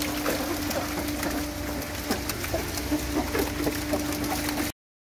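Wet pemecou sea catfish flapping and slapping in the bottom of a wooden boat as the seine catch is hauled in: an irregular patter of small wet slaps and clicks over a steady low hum. The sound cuts out abruptly near the end.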